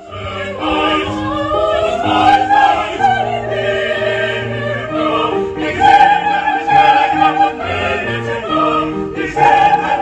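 A female classical vocalist singing in operatic style, her voice wavering with vibrato over steady held notes of a keyboard accompaniment.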